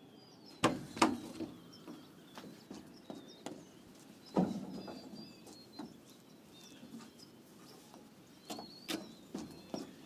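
Footsteps and knocks on a wooden deck, a few sharp ones about a second in, another about four seconds in and a cluster near the end, with small birds chirping faintly in the background.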